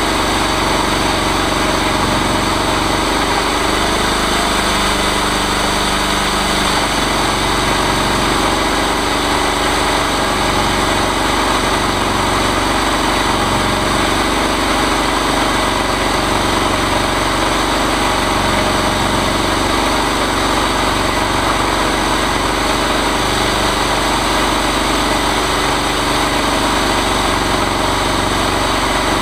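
Chainsaw mill's engine running steadily at a constant speed.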